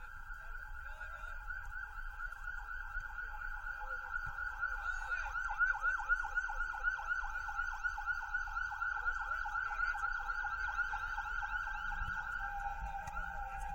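Emergency vehicle siren sounding, going into a fast repeated yelp through the middle for several seconds.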